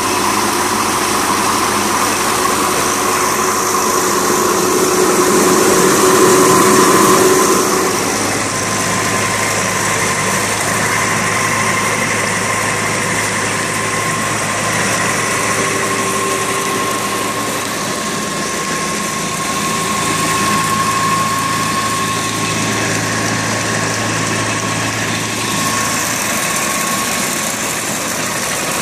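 Farmall tractor engine running steadily, belt-driving an antique burr mill as it grinds soybeans. The level swells for a few seconds before dropping back about eight seconds in.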